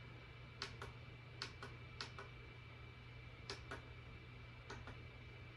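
Small plastic buttons on a mini projector clicking as they are pressed to step through its on-screen menu: five quick press-and-release double clicks, spaced about a second apart, over a faint steady hum.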